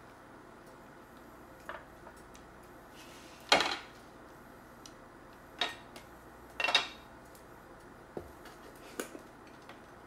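A handful of separate clinks and knocks of kitchen utensils against a pot and dishes, the loudest about three and a half seconds in and two more near six and seven seconds.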